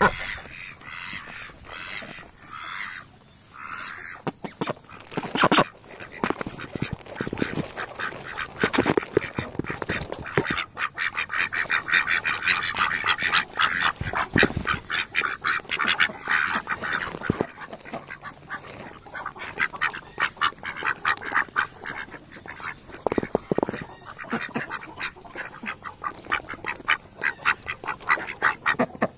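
A white domestic duck quacking close up while she begs excitedly for peas. There are a few drawn-out calls at first, then a long, rapid run of short, clipped sounds.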